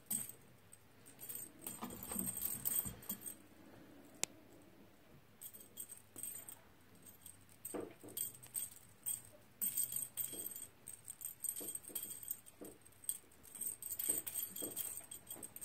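Small bell jingling in short, irregular bursts all through, with a few soft low scuffs mixed in, as kittens play on a carpeted cat tree.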